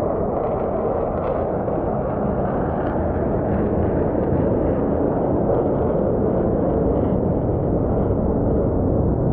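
Jet engines of a formation of four military jets flying overhead: a steady low rumble that grows a little louder partway through.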